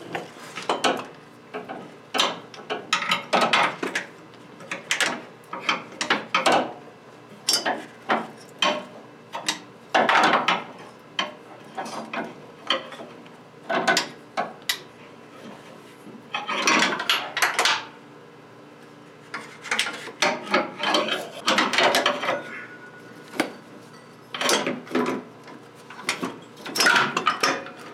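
An AC compressor being handled into its mounting on the engine: irregular metal knocks, clatters and scrapes as the compressor body and bolts are shifted against the bracket.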